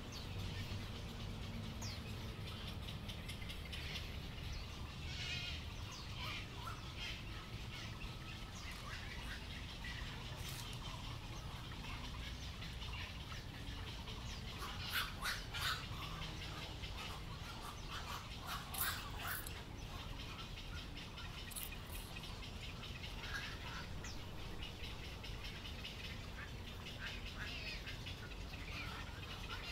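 Several birds calling and chirping, with louder runs of harsh calls about 15 and 19 seconds in, over a steady low background rumble.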